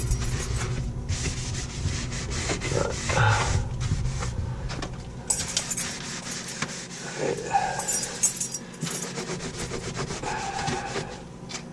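Scrubbing and rubbing at refrigerator surfaces with soapy water, in irregular strokes.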